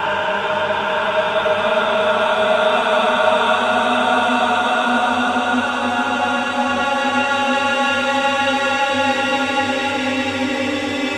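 Ambient music of long, held tones that shift only slowly, with a chant-like drone.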